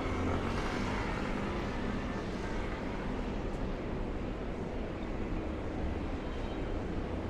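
Steady city street traffic noise: an even low rumble and rush of passing vehicles on a busy avenue, with no single event standing out.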